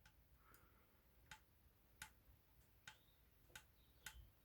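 Faint light clicks, roughly one every half to three-quarters of a second, from a pick working the levers of a Union 3G110 five-lever lock.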